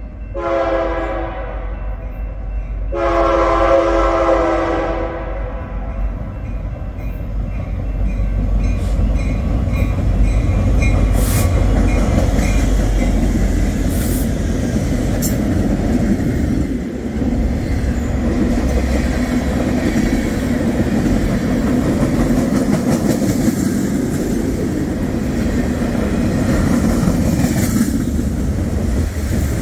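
Train horn sounding twice, a short blast and then a longer one, followed by the steady low rumble and wheel clatter of the train rolling past.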